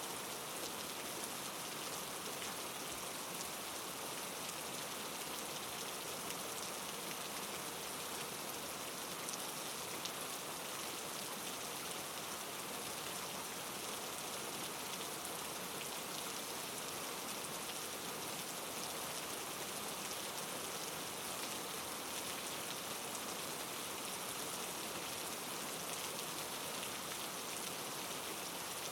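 Steady rain falling on a surface, an even hiss with fine patter of drops.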